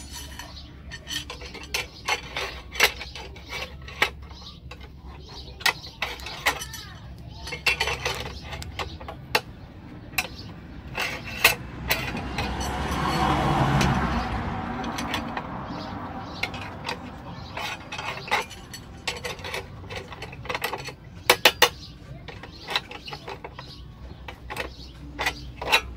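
Steel wire rod being bent into a column stirrup on a homemade bending jig with a pipe lever: repeated sharp metallic clicks and clanks as the rod and pipe knock against the jig. Around the middle a broad rushing sound swells and fades over a few seconds.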